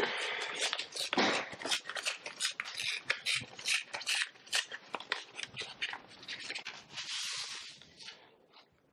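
Brown paper envelope being handled and opened: quick crackling and crinkling of stiff paper, with a longer rustle about seven seconds in as the sheets inside slide out.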